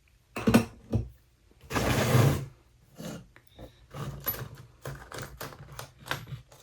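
Small clicks and taps of watchmaking tools and parts being handled on a workbench during a test fit, with two sharper knocks in the first second and a short loud scrape about two seconds in.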